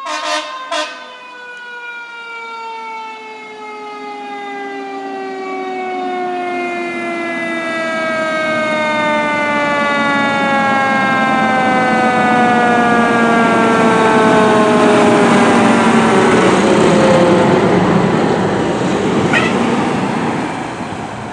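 Fire truck's siren winding slowly down in one long falling tone, after two short sharp blasts at the start. It is a 2015 Pierce Velocity tiller ladder truck. Engine and road noise grow louder as the truck comes close and passes, then fade near the end.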